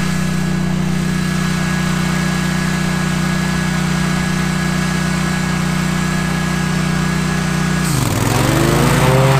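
Lawn mower engine running at a steady speed. Near the end its pitch drops sharply and then climbs back up higher.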